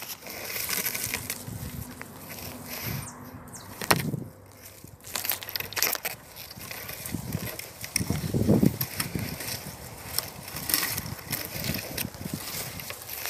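Dry leaves and twigs crunching and crackling, with irregular snaps and a few dull thumps.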